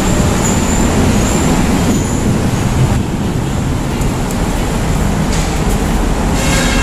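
Steady low rumble of a road vehicle in motion.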